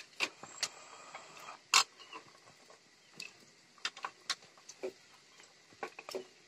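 Scattered light clicks and taps of cut ivy gourd pieces being handled in a steel plate, with one sharper click just under two seconds in.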